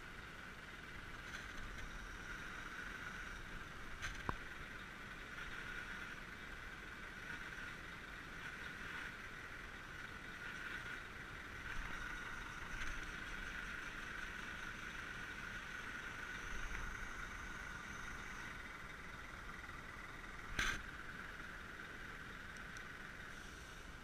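Scania G490 concrete mixer truck running under radio remote control, with a steady mechanical whine that swells and eases slightly. A sharp click comes about four seconds in, and a louder knock late on.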